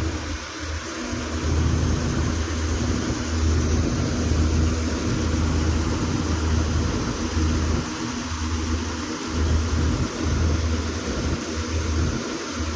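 Combine harvester engine running steadily, with a low rumble that swells and dips irregularly under a steady wash of mechanical noise.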